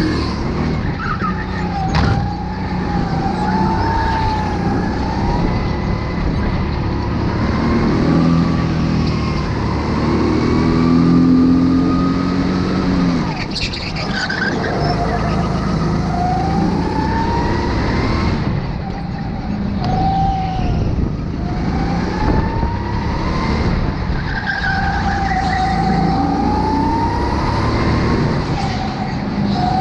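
Go-kart engine heard from the driver's seat, its pitch rising and falling as the throttle opens and closes through the corners, with high gliding tyre squeals in the turns. A sharp knock about two seconds in and another near the middle.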